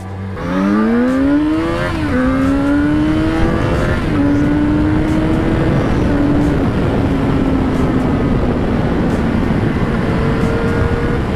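Yamaha XJ6's 600 cc inline-four motorcycle engine pulling away and accelerating. Its pitch climbs and drops at two upshifts, about two and four seconds in, then holds steady and eases slowly down while riding on, over a steady rush of wind noise.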